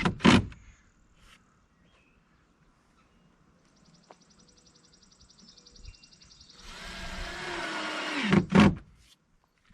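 Drill/driver driving screws: a burst of motor whine that ends with a couple of sharp clacks just after the start, then a second run of whine from about seven seconds in, again ending in sharp clacks.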